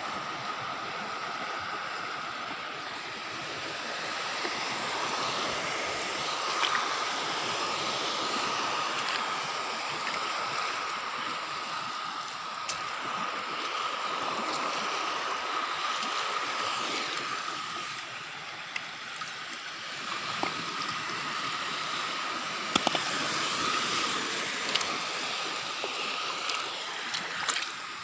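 Shallow seawater washing and trickling over a rocky reef flat, a steady rushing noise with a thin steady tone behind it. A few sharp clicks and knocks come through, more of them in the second half.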